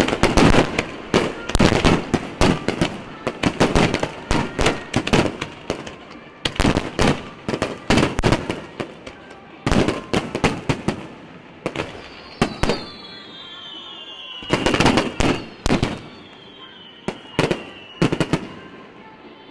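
Fireworks shells bursting in quick succession, a dense run of bangs and crackles that thins out into separate bursts, with a loud cluster of bursts about three-quarters through. Over the second half a high whistling tone falls slowly in pitch.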